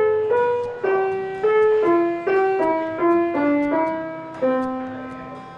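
Background music: a slow piano melody of single notes, about two a second, each struck and fading, stepping mostly downward in pitch.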